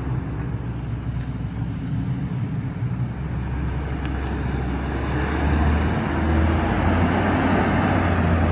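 A heavy vehicle's engine rumbling low, growing louder as it approaches.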